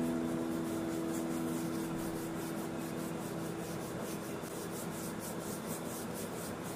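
Flat paintbrush rubbing acrylic paint onto paper in quick back-and-forth strokes, several a second. A piano chord rings on and fades away over the first few seconds.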